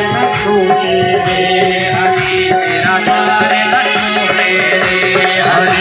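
Devotional song performed live: a man sings into a microphone to a tabla-like hand-drum rhythm, over a steady held tone.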